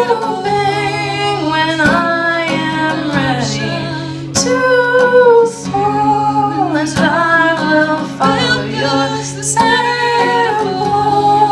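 Female singing with guitar accompaniment, the voice holding and sliding between long sung notes.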